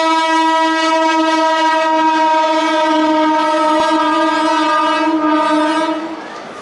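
WAP4 electric locomotive's horn held in one long, steady blast that stops about six seconds in, with train running noise beneath it.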